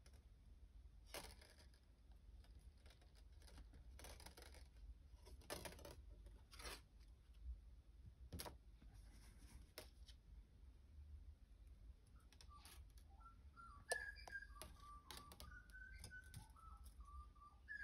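Faint rustles and light clicks of thin 22-gauge wire being handled and wrapped onto a wire cuff frame. From about twelve seconds in, a string of faint short whistle-like tones steps up and down in pitch.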